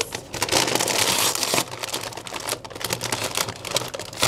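A plastic Doritos crisp bag crinkling and crackling as it is handled and pulled open: a dense crackle for about the first second and a half, then lighter, scattered crinkles.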